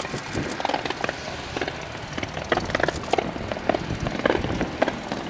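Airborne pyrotechnics on a motor glider crackling and popping irregularly, many sharp snaps over a low background rumble.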